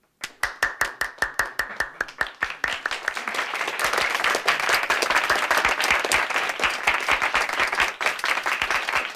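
Applause from a small room full of people: a few separate claps start just after the opening, quickly joined by more hands, and by about three seconds it has filled out into dense, steady clapping.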